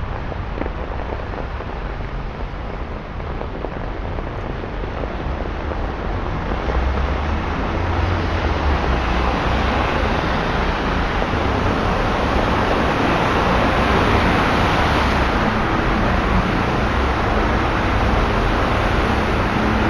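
Road traffic on a flooded, rain-soaked street: tyres hissing and splashing through standing water under a low engine rumble. It swells from about a third of the way in to a loud, steady wash of spray as a vehicle drives through the flood.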